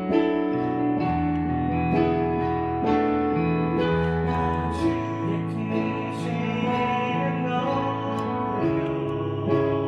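Background music led by acoustic guitar, playing steady held notes.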